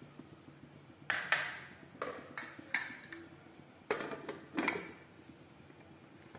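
Aluminium pressure cooker's lid being fitted and locked shut by its handles: several light metal clanks and knocks spread over about four seconds.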